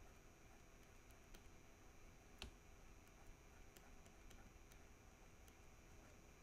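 Near silence: faint room hiss with sparse light clicks, one sharper click about two and a half seconds in.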